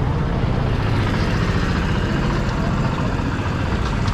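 Motorcycle engine running steadily under road and traffic noise.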